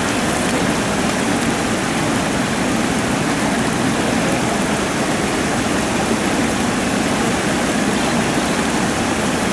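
Steady rush of river water pouring over a low weir and around rocks below a dam.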